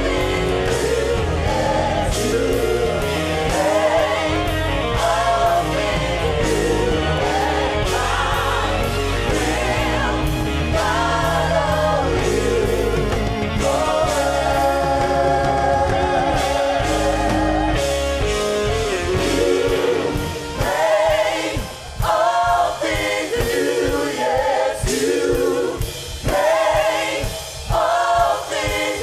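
Gospel worship team and choir singing live with a band. About twenty seconds in, the bass and fuller band drop away, leaving the voices over sharp, spaced beats.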